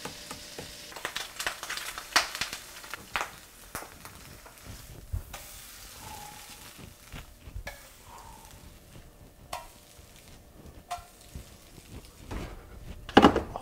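Eggs sizzling in a frying pan, with scattered clicks and scrapes as the pan is handled and the eggs are stirred, and a loud knock near the end.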